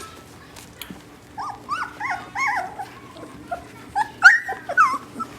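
Gerberian Shepsky puppies, about 16 days old, whimpering and squeaking in short, high cries that rise and fall. A run of them comes about a second and a half in, and a louder few about four seconds in.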